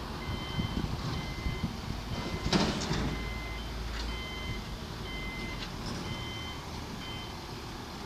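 Reversing alarm on heavy construction machinery beeping in a series of short tones at two pitches, over a low engine rumble, with a loud clank about two and a half seconds in.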